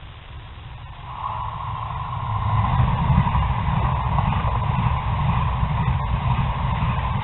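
TGV high-speed train passing close by at speed. A rush of noise builds from about a second in, then holds as a loud, steady rumble and hiss of wheels on rails while the carriages go by.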